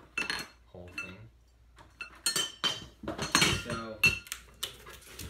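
Animatronic frame poles clinking and clanking together as they are handled, a run of sharp metallic knocks with a short ring after each.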